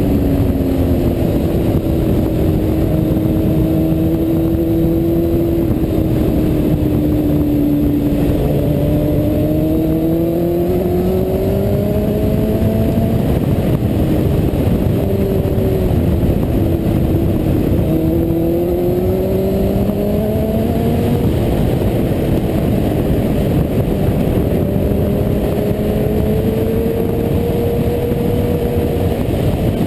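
Sport motorcycle engine heard from an onboard camera, running hard with its pitch rising and falling as the rider works the throttle, over a steady rush of wind.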